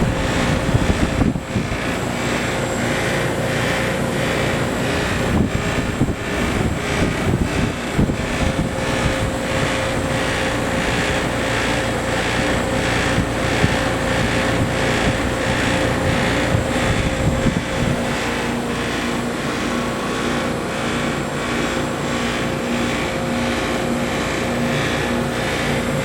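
Trane XL15i outdoor air-conditioning unit running: a steady compressor hum under a rushing condenser fan, with a repeated rattling from the unit.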